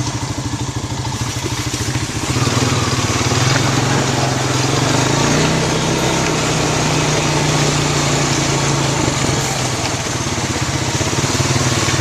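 Quad (ATV) engine running under way: its pitch rises over a few seconds early on as it speeds up, then holds steady.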